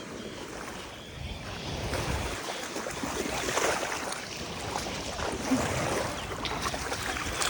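Gulf surf washing up on a sandy beach, the wash swelling and ebbing, with wind buffeting the microphone.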